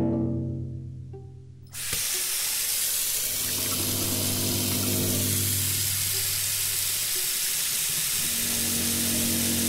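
Kitchen faucet running into a stainless steel sink, starting suddenly about two seconds in, as hands rinse a small object under the stream. Low, sustained musical tones run underneath.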